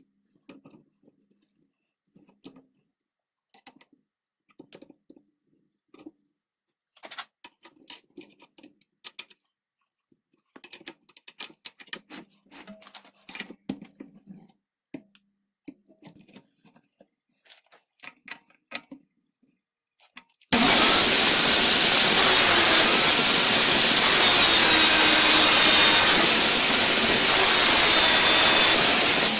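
Scattered light clicks and knocks of parts being handled, then about two-thirds of the way in an angle grinder starts abruptly and runs loud and steady to the end.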